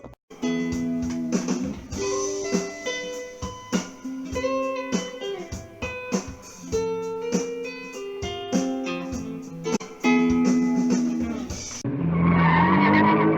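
Guitar playing a slow line of plucked notes and chords, each note ringing briefly before the next. Near the end it cuts off abruptly into a different, louder sound with a rising pitch.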